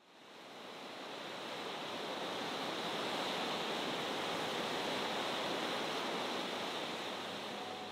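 Steady rush of river water tumbling over a small rocky rapid, fading in over the first couple of seconds.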